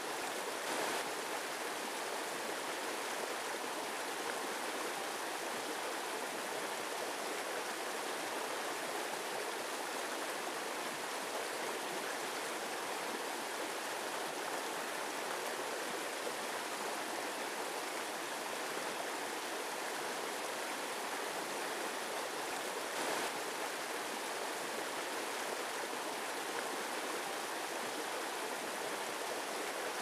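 Shallow rocky stream rushing over boulders as whitewater: a steady, even rush of running water, mostly high with little deep rumble.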